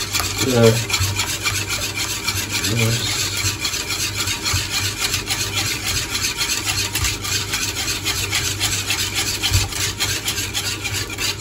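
Wire balloon whisk scraping quickly and continuously against the bottom and sides of a saucepan while whisking a thick ketchup-based barbecue sauce.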